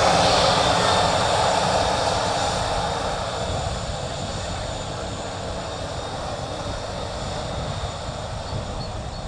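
Airbus A320-214's twin CFM56-5B jet engines running at taxi power as the airliner rolls past and away. The engine noise fades over the first three to four seconds, then holds steady.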